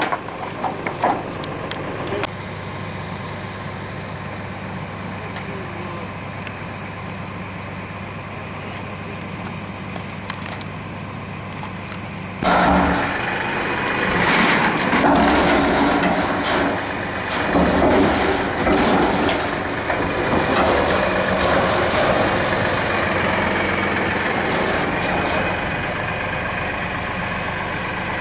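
Tractor engine running steadily. About twelve seconds in, a louder stretch of clattering noise full of sharp clicks sets in over the engine and lasts about thirteen seconds before dying back to the engine alone.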